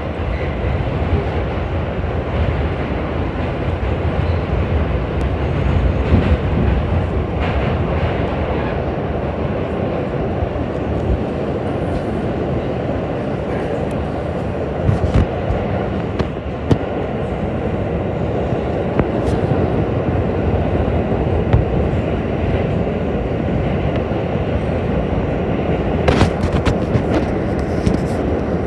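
Steady rumble of a moving train heard from inside the carriage, with scattered sharp clicks and a cluster of clicks near the end.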